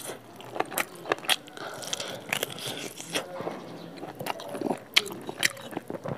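Close-miked eating of spicy pork curry with rice: wet chewing and biting, with the gravy-soaked meat pulled apart by hand, broken by irregular sharp clicks.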